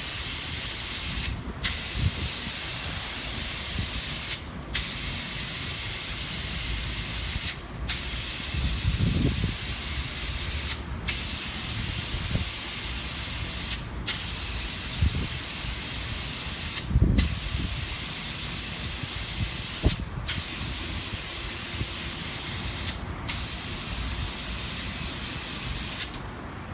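Compressed-air gravity-feed spray gun hissing steadily as it sprays a rear-projection screen coating onto window glass. The hiss breaks off briefly about every three seconds as the trigger is released between passes, and stops just before the end.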